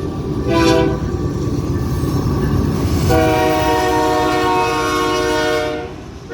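Passing train's air horn sounding a multi-note chord: a short blast about half a second in, then a long blast of nearly three seconds, over the steady rumble of the train rolling by.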